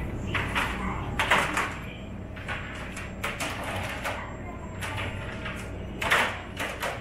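Supermarket background sound: a steady low hum with scattered clacks and rustles, and faint voices.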